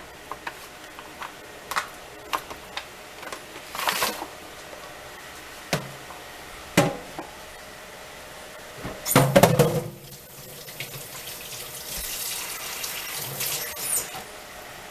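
Scattered light knocks and a louder clatter about nine seconds in, as chicken wings are laid on a pan, then a kitchen tap running for about four seconds and shutting off near the end.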